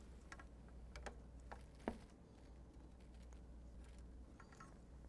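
Faint, scattered clicks and ticks of a hand driver turning the ground screw on a water-softener control valve's metal backplate, with one sharper click about two seconds in.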